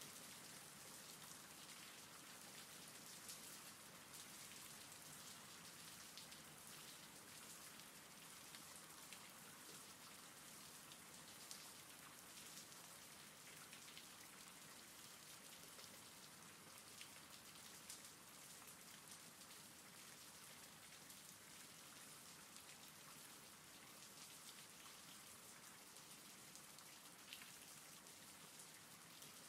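Faint, steady rain with the odd louder drop ticking through.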